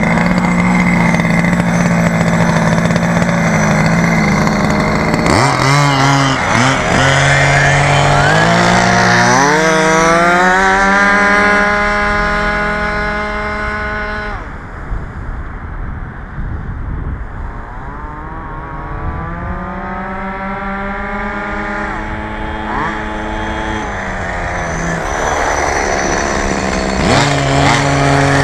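Small two-stroke gasoline engines of large-scale RC buggies. An engine runs steadily at first, then revs up with climbing pitch as a buggy accelerates away. About halfway through the sound drops off sharply and goes fainter and distant. Another rising run follows, and it gets louder again near the end.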